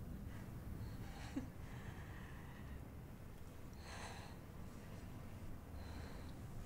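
Quiet breathing and soft sighs from two people standing close, a few short breaths spread through the moment, the clearest about four seconds in, over a low steady room hum.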